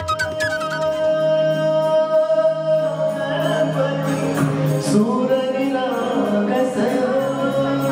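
Live Indian music: a singer with keyboard accompaniment. A long held note opens the passage, and sung lines come in about three seconds in.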